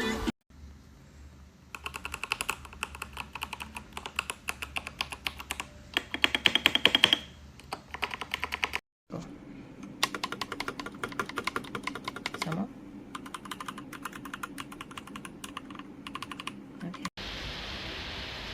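Typing on a Royal Kludge RK R87 mechanical keyboard: quick runs of clicky keystrokes, with a burst of fast, louder key presses about six to seven seconds in. Near the end the typing stops and a steady hiss takes over.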